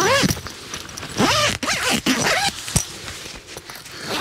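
Zip on the mesh inner door of a Hilleberg tunnel tent being run in several quick pulls, about one a second, with a single sharp click a little under three seconds in.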